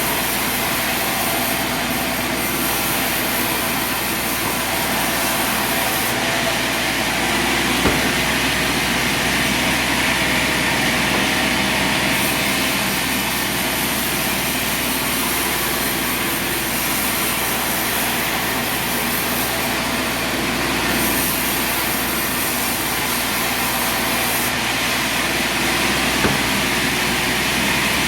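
Sawmill running steadily under power, its engine droning while the blade cuts through a log, the hiss of the cut coming and going over several seconds. Two short sharp knocks, one about eight seconds in and one near the end.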